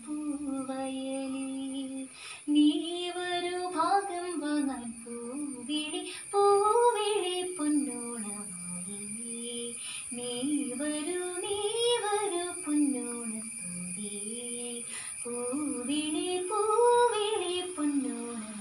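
A girl singing a Malayalam Onam song solo, phrases rising and falling in pitch and ending on long held notes.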